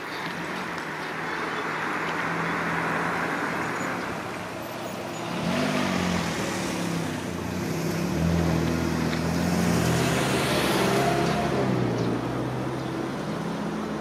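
Road traffic: motor vehicle engines humming and tyre noise swelling and fading as several vehicles pass one after another.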